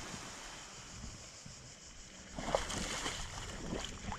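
Small waves lapping on a pebble shore, with water splashing and gurgling close to the microphone from about two seconds in as it reaches the surface.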